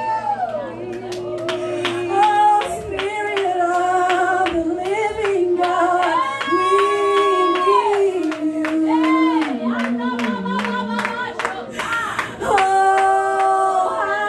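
Wordless improvised singing by two or more voices, one high and one lower, on long held notes that slide up and down, over steady rhythmic hand clapping.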